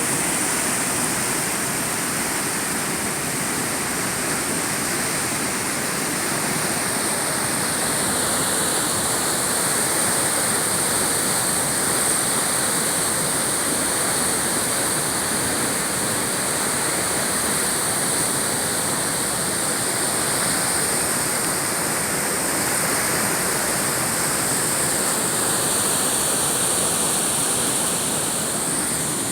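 Basaseachi Falls: the steady rush of a large waterfall, an even, unbroken hiss of falling water across low and high pitches.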